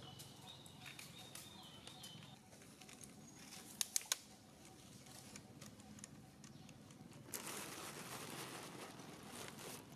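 Faint crinkling rustle, with three sharp clicks about four seconds in and a louder stretch of crinkling in the last two or three seconds.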